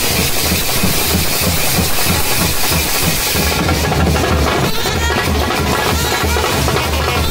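Loud band music with a heavy, steady drum beat.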